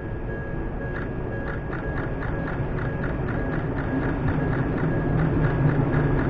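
Japanese railway level-crossing warning bell ringing in a quick, steady rhythm. The low rumble of an approaching electric train grows louder from about halfway.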